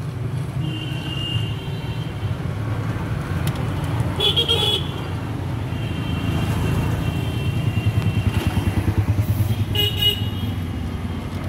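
Street traffic: motor vehicle engines running, with a pulsing engine rumble growing near the end, and several short vehicle horn toots.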